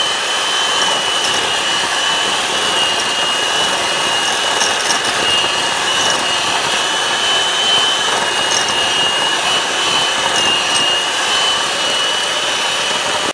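Electric hand mixer running steadily with its twin beaters whipping cream in a bowl, a motor drone with a steady high-pitched whine. It cuts off suddenly at the end.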